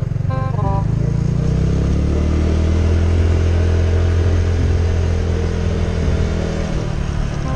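Small motorcycle engine under way, its pitch rising for a second or two as it picks up speed, then holding steady before easing off near the end.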